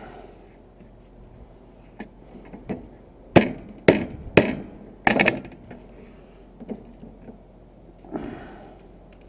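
Sharp knocks of a metal tool on a brass water-heater valve, a few light ones then four hard strikes in quick succession about three and a half to five seconds in, with a short scrape near the end, as a pressed-in part is tapped and pried to work it loose.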